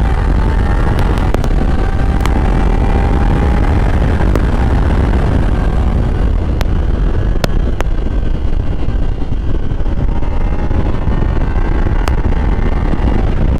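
Kawasaki Ninja sport bike's parallel-twin engine running at a steady cruise, heard from the rider's seat under heavy wind buffeting on the microphone. The engine note drifts slowly up and down in pitch, with a few faint sharp clicks.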